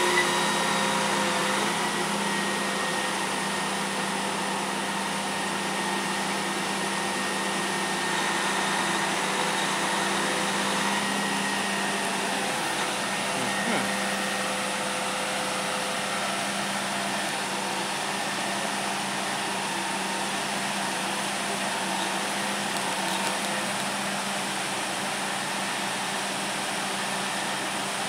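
Steady mechanical hum of a boom truck's diesel engine running at a constant speed to drive the hydraulic pump of its knuckle-boom crane.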